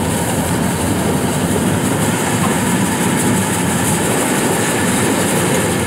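Kubota DC-115 Plus rice combine harvester running steadily under load as it cuts and threshes lodged rice, a continuous mechanical din of engine, threshing drum and straw chopper.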